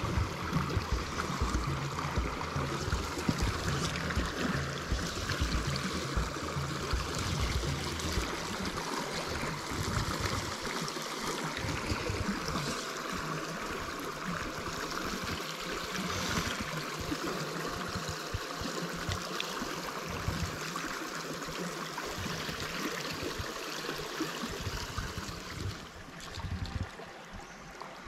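Small freestone mountain stream running and gurgling, a steady rush of water, with gusty low rumbling in the first several seconds.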